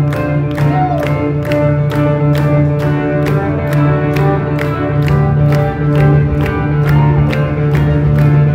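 Live rock band playing: two electric guitars, one a Flying V, over drums, with cymbal strokes about three a second and guitar notes bending in pitch now and then.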